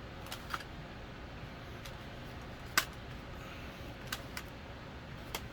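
Large plastic Godzilla action figure being handled as its legs are posed: a few sharp plastic clicks, a couple of small paired ones and one louder click about three seconds in, over faint steady room hiss.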